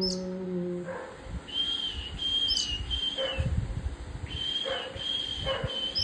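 Fledgling Oriental magpie-robin giving thin, high, whistled begging calls: six drawn-out notes, each dipping slightly at the end, in two runs of three.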